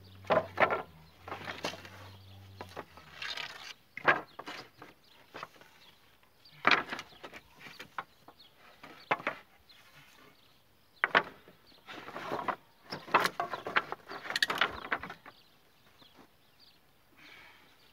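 Wooden pallet planks knocking and scraping against each other as they are picked up, slid off a pile and set down, in irregular knocks. A faint low hum stops about three seconds in.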